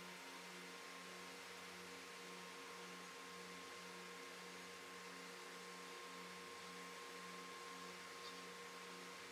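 Faint, steady machine hum made of several fixed tones, the lower ones throbbing about twice a second.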